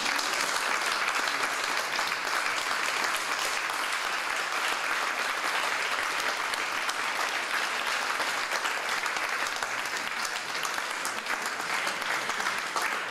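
Audience applauding steadily, a dense sustained clapping from many hands.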